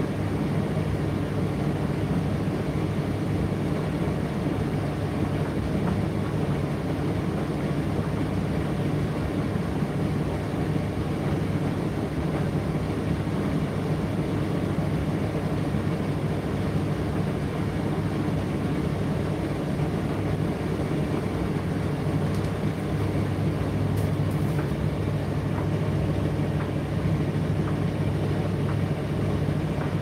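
Indesit IDC8T3 condenser tumble dryer running: a steady hum from its motor and fans as the drum turns, with a few faint clicks near the end.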